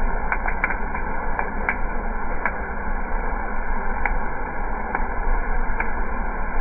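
Freshly roasted coffee beans pouring out of a drum roaster into its perforated metal cooling tray, a steady rattling rush as the stirring arms turn through the beans. A low steady hum runs underneath, and scattered sharp clicks break through it.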